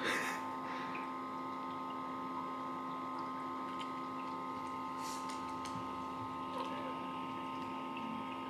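Steady hum made of several held tones, with a few faint ticks over it.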